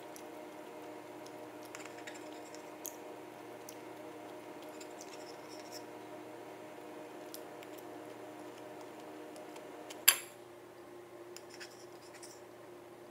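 Quiet eating sounds: a metal fork and wooden spoon scraping and tapping on a ceramic plate while twirling spaghetti, with small scattered clicks. One sharp clink about ten seconds in is the loudest sound, over a steady low hum.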